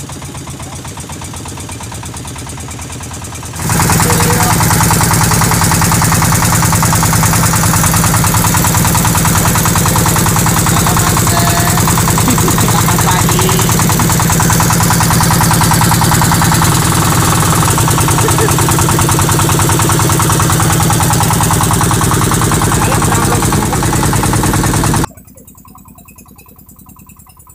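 Fishing boat's engine running with a rapid, even pulse. It is moderate at first, jumps to very loud about four seconds in, and drops away suddenly a couple of seconds before the end.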